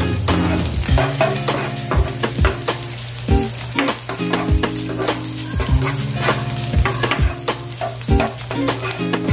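Sliced red onion and garlic sizzling in hot oil in a nonstick frying pan while a plastic spatula stirs them, scraping and knocking against the pan at irregular strokes: the sauté (gisa) base of the dish.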